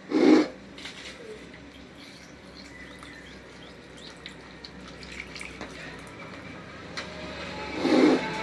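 Petrol-soaked cotton wad dabbed and squeezed against a Honda Livo carburetor body, with liquid dripping and light clicks of handling. A short loud burst comes right at the start and another near the end.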